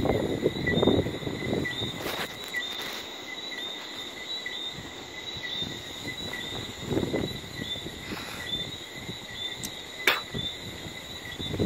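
Steady high-pitched night chorus of chirping insects, pulsing about twice a second. Low rumbling noise swells in and out, and a sharp click comes about ten seconds in.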